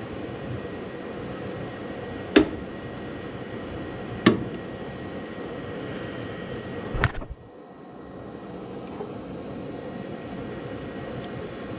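Gas furnace running with a steady whoosh, broken by three sharp knocks a couple of seconds apart as the faulting pressure switch is struck to check for weak contacts. Right after the third knock the running noise drops suddenly, then slowly builds back up.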